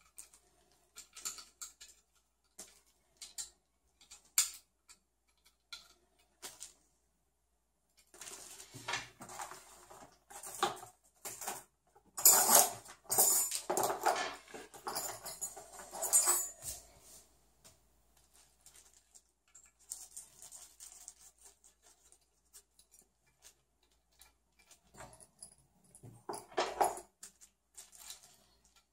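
Scattered clicks and light scrapes of a graphics card and computer chassis parts being handled, with a louder, denser stretch of rattling about halfway through as hand tools are sorted in a tool case, and another brief burst of clatter near the end.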